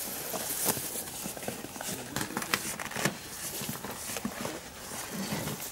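Irregular rustling and small clicks of hands working under a vehicle's axle, twisting wire to tie up the suspension.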